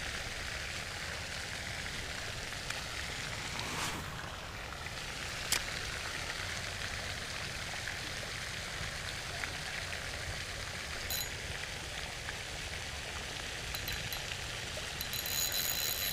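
Steady outdoor hiss of water or wind noise with no clear single source, broken by one sharp click about five and a half seconds in and a few faint ticks near the end.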